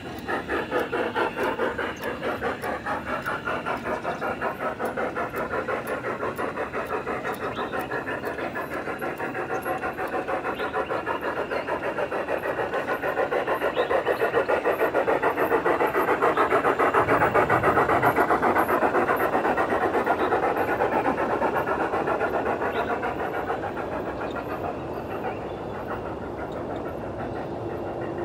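Large-scale model steam locomotive chuffing in a quick, even rhythm, getting louder toward the middle and fading near the end as it passes.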